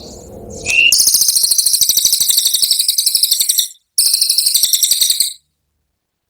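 Brown cililin singing its rapid-fire 'tembakan' song: a very fast, high-pitched trill of tightly packed notes, in two bursts, the first about three seconds long and the second about a second long after a brief break.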